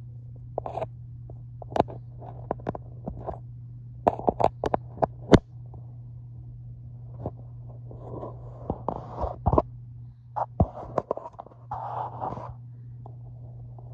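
Handling noise from the recording phone being moved against a bedspread: a run of sharp clicks and knocks with short bursts of fabric rustling, over a steady low hum.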